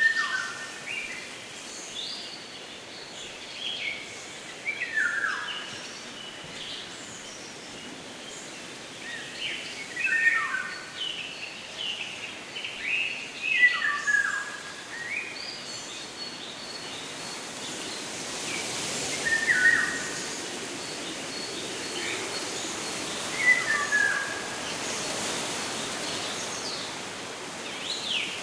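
Songbirds singing short, repeated phrases that fall in pitch, one every few seconds, over a steady outdoor hiss that grows louder in the second half.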